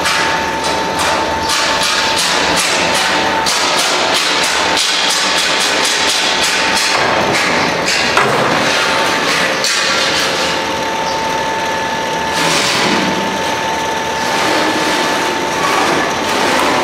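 Rapid metallic knocking, several strikes a second like hammering, for about the first seven seconds, over a steady high-pitched machine hum that carries on after the knocking stops.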